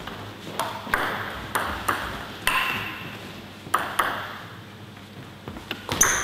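Table tennis ball clicking against bats and table, with a short echo after each click: scattered single clicks, then a quick run of strokes near the end as a rally starts.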